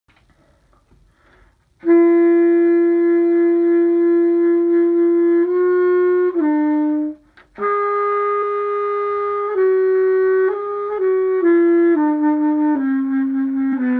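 A single woodwind instrument, likely a clarinet, playing a solo melody. It begins about two seconds in with a long held note, moves through shorter notes, breaks off briefly for a breath about seven seconds in, then goes on with more notes.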